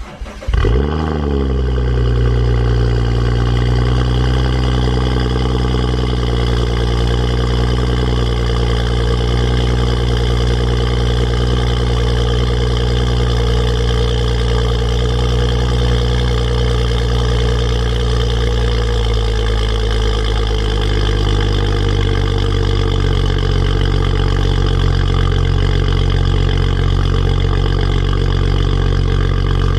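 BMW N55 3.0-litre turbocharged inline-six cold-starting through a Dinan free-flow exhaust with a catless downpipe: a brief crank, a sharp flare as it catches, then a steady fast cold idle that settles slightly lower about twenty seconds in.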